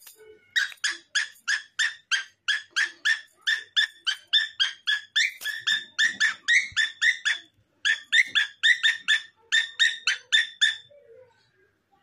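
Cockatiel calling in a fast, even run of short chirps, about four a second, with one brief break just past the middle, stopping about a second before the end.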